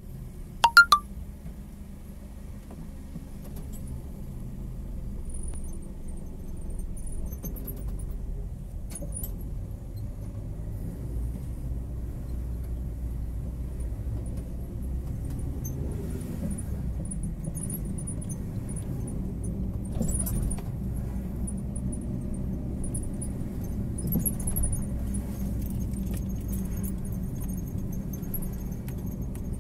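Steady low rumble of a car moving slowly in traffic, heard from inside the cabin. A loud, sharp clatter like jangling keys about a second in, and light clicks and rattles now and then after it.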